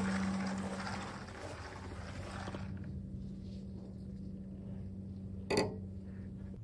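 A steady low hum with a hiss of noise over it; the hiss drops away about two and a half seconds in. A single sharp click comes near the end.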